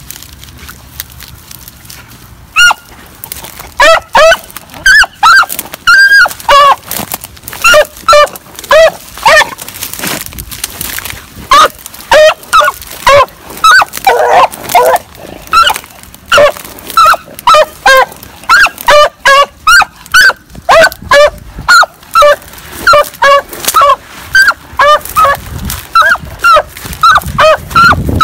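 A rabbit hound barking loudly and over and over, about two barks a second, starting a couple of seconds in: the bark of a hound giving voice while running a rabbit.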